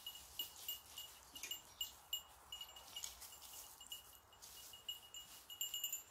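A small metal bell jingling faintly and irregularly, a few light rings a second at the same high pitch, busiest near the end.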